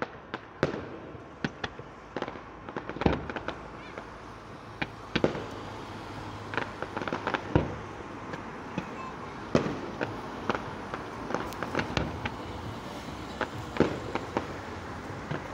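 Aerial fireworks bursting: a run of irregular sharp bangs and crackles over a steady background hiss.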